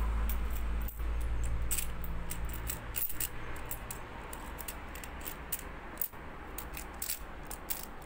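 Metal coins clinking and sliding against each other in irregular little clicks as cats paw through a heaped tray of coins and scatter them. A low hum lies under the first three seconds, then drops away.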